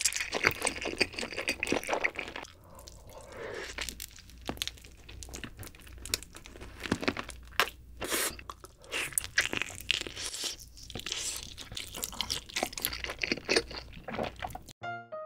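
Close-miked eating: slurping jjapaghetti black bean noodles, then biting and chewing sauce-glazed roasted chicken, with many sharp wet smacks and clicks. A keyboard tune begins right at the end.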